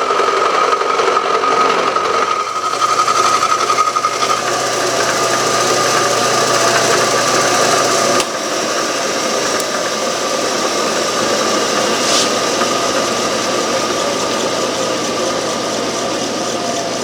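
Machine tool running with its cutter taking a pass through the bottom of a Briggs & Stratton Model Q engine crankcase: a steady whine with metal-cutting noise, stepping a little quieter about eight seconds in.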